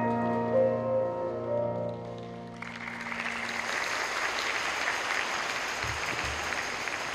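The last held chords of the skating program's music ringing out and fading, then applause breaking out about two and a half seconds in and continuing steadily.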